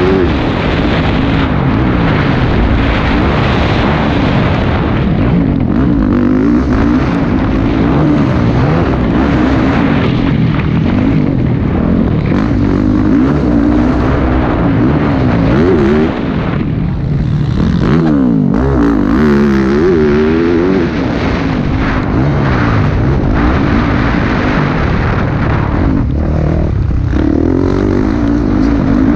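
Motocross bike engine heard up close from the rider's helmet, revving up and down over and over as the bike accelerates, shifts and backs off around a dirt track.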